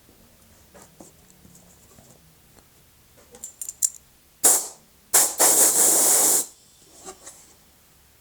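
Aerosol can spraying, likely CA glue accelerator: a few light clicks, then a short spritz, then a steady spray lasting over a second.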